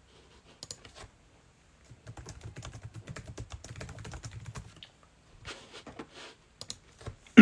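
Typing on a computer keyboard: a few scattered key clicks, then a quick run of rapid keystrokes for a couple of seconds, then a few more clicks.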